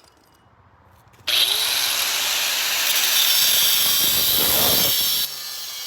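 Power tool, sounding like an angle grinder's cutting disc, biting into the ATM's steel safe box. It starts loud and abruptly about a second in, runs hard for about four seconds, then drops to a quieter level near the end as the disc eases off the metal.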